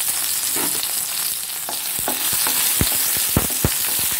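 Chopped onion and garlic sizzling in hot oil in a pan. A spatula scrapes and knocks against the pan from about halfway through as they are stirred.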